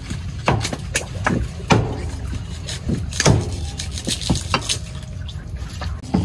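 A heavy kitchen knife chopping through raw duck meat and bone on a chopping board. The strikes are sharp and irregular, about one or two a second.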